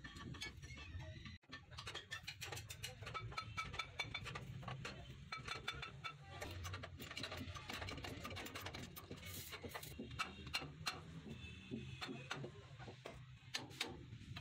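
Irregular metallic clicks and ticks of hand tools working on a dumper truck's leaf-spring suspension, over a low steady hum.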